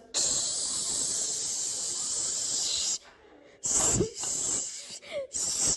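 A loud, steady hiss lasting about three seconds, followed by three shorter hisses.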